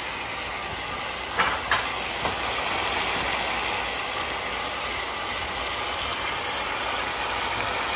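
Oil and butter sizzling steadily in a large pan as a whole braised lamb leg fries to brown its underside, with two light knocks about a second and a half in.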